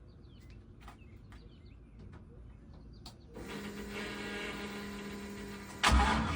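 Starter motor cranking a 6.0 L LQ4 V8 with a steady mechanical whine for about two and a half seconds, then the engine fires near the end with a sudden loud burst through its long-tube headers, X-pipe and BlackWidow Widowmaker mufflers. Before the cranking there is only faint bird chirping.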